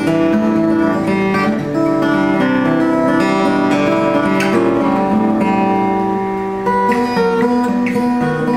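A 1932 Martin OM-18 acoustic guitar (mahogany back and sides, spruce top) being played, with a steady run of chords and single notes ringing. An echoey room gives it a reverberant sound.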